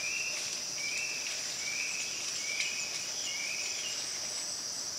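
Forest insects keeping up a steady high-pitched buzz, with a short call repeating a little faster than once a second over it.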